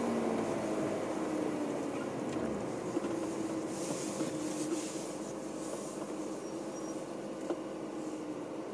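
BMW E36 M3's straight-six engine running at low revs along with tyre and road noise, heard from inside the cabin, slowly getting quieter.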